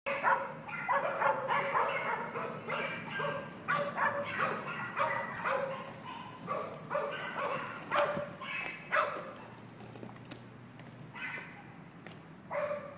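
Young children's high-pitched voices: short calls, squeals and chatter without clear words, busiest in the first nine seconds and thinning out after that.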